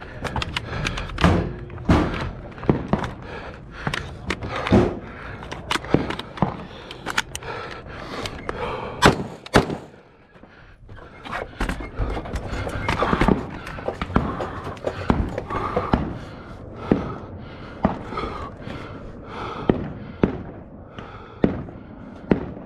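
Single rifle shots fired at steel targets, spaced irregularly, among duller thumps and knocks.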